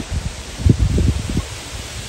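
Wind buffeting the microphone outdoors: irregular low rumbling gusts over a steady hiss, strongest in the first half.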